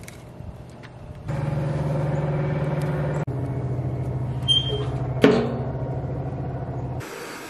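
An engine running steadily, with a brief break about three seconds in and an abrupt stop near the end; a sharp knock about five seconds in.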